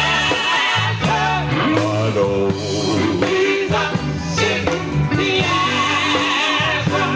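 Gospel group singing with guitar accompaniment.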